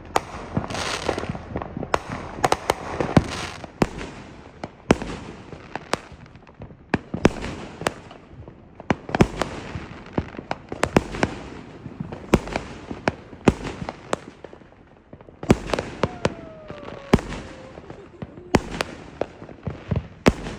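Aerial fireworks going off in a long barrage: sharp bangs of shells bursting, several a second at times, with crackling between them and a faint whistle near the end.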